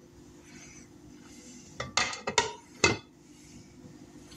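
Glass lid being put back on a slow cooker, clinking against the crock rim: four sharp clinks in about a second, midway through.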